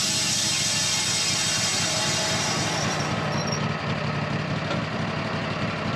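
Wood-Mizer LT15 band sawmill running, its engine going steadily while the band blade saws through a hard maple log.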